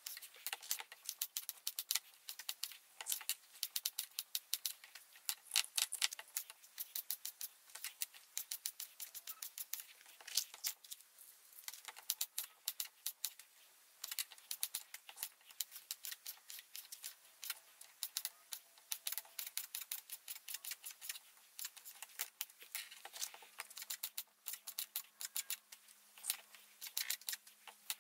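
Knife chopping bell peppers on a plastic cutting board: quick, repeated clicks of the blade striking the board, in runs with brief pauses.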